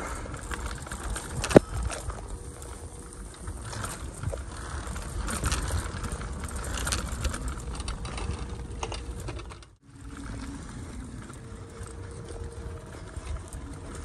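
Bicycle riding over a dirt trail: tyre and frame rattle with scattered clicks and a steady low rumble, one sharp knock about one and a half seconds in, and the sound dropping out briefly near ten seconds in.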